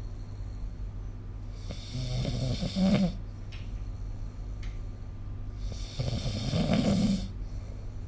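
A sleeping person snoring: two snores about four seconds apart, each lasting about a second and a half and loudest near its end, over a steady low hum.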